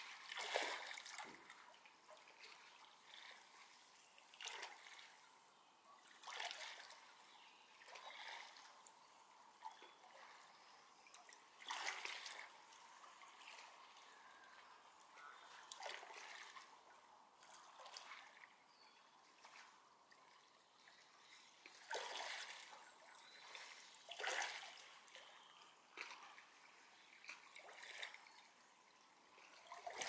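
Faint lapping and trickling of shallow lake water, coming in soft, irregular swells every couple of seconds.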